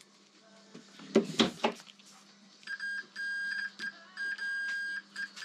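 Multimeter continuity beeper sounding a steady high beep from a little over two and a half seconds in, broken by several short gaps while the repaired heated-grip wiring is squeezed and flexed to look for an intermittent break. A few brief handling rustles come before it.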